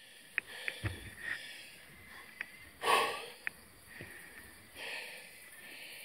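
A cyclist breathing hard at rest, with a loud exhale about three seconds in and softer breaths after it. A few faint, sharp clicks are scattered between the breaths.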